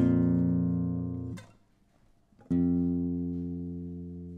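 Nylon-string classical guitar playing the song's closing chords. A strummed chord rings and is damped after about a second and a half, then after a short pause a final chord is struck and left to ring out, fading.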